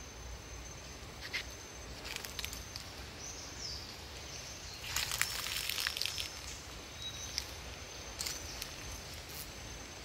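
Tropical forest ambience: a steady soft hiss with a thin, steady high tone, broken by crackling rustles of dry leaves and twigs, the densest about five seconds in. A couple of brief high chirps come about three and a half and seven seconds in.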